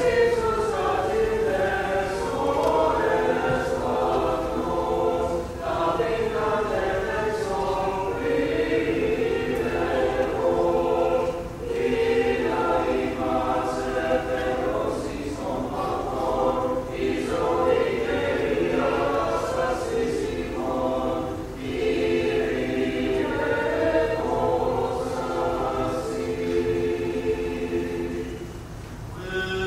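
Greek Orthodox church choir singing a liturgical hymn, in long phrases with short breaks between them.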